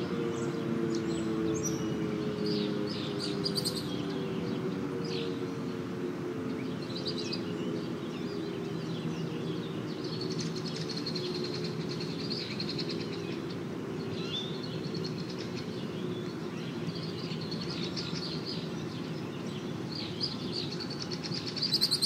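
Outdoor warning siren winding down after a test, its chord of tones slowly falling in pitch and fading. Birds chirp over it throughout.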